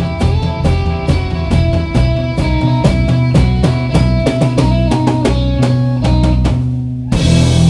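Live rock band playing loudly: electric bass, drum kit and electric guitar over a fast, steady drum beat. Just before seven seconds in the playing breaks briefly, then comes back in fuller.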